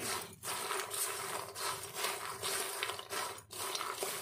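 Puffed lotus seeds (makhana) being stirred and roasted in a wok with a silicone spatula: an uneven, scratchy rustling and scraping as the light seeds tumble against the pan and each other while they roast crisp.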